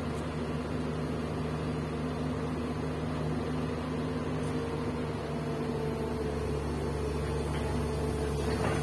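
Komatsu PC200 excavator's diesel engine running with a steady, even hum.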